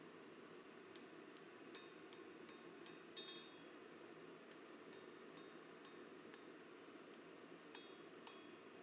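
Faint, light metal-on-metal clinks, each with a short high ring, coming irregularly at about two a second over a steady low hiss.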